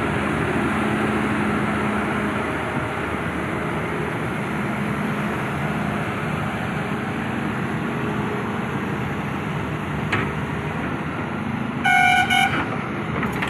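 Heavy diesel machinery running steadily while an excavator is unloaded, with a short vehicle horn blast near the end.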